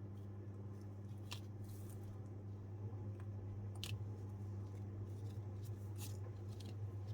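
Soft, sparse clicks and scrapes of small-scale craft handling, about five in all, over a steady low hum.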